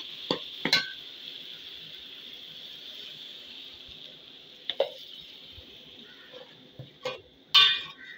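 Sliced okra with onions and tomatoes sizzling in a hot metal pot, just after water has been added, the sizzle slowly dying down. A metal spoon knocks against the pot a few times, with a louder clatter near the end.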